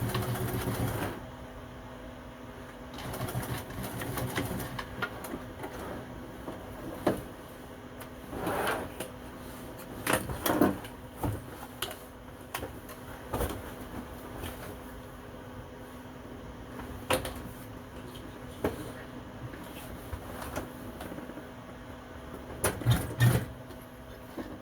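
Sewing machine stitching upholstery in several short bursts, over a steady hum, with sharp clicks between the runs.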